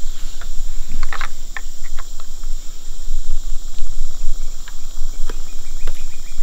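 Steady high-pitched insect chorus, with a few light clicks and knocks as a crossbow is handled, about a second in and again near five seconds.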